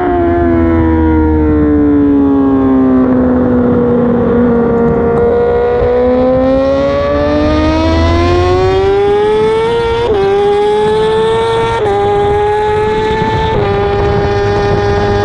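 BMW S1000RR inline-four superbike engine at racing speed, heard onboard: the engine note falls as the bike slows and leans through a corner, then climbs steadily under acceleration. Near the end it shifts up quickly through the gears.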